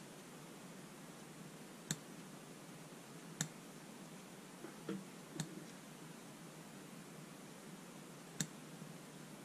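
About five sharp little clicks, a couple of seconds apart: a Stanley knife blade ticking against the brass end of a boxwood folding rule as it scrapes dirt out of the fine engraving.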